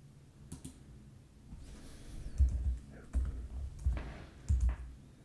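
Computer mouse and keyboard clicks: a single click about half a second in, then a run of sharp clicks, each with a dull thump, roughly every 0.7 s through the second half.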